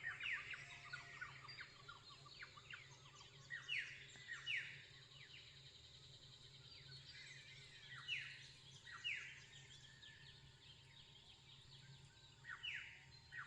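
Faint birdsong: pairs of down-slurred calls about every four seconds, with scattered small chirps near the start.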